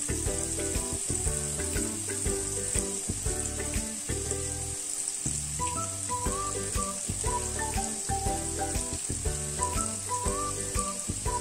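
Paneer cubes sizzling steadily as they shallow-fry in hot oil in a pan, over background music with a melody and bass line.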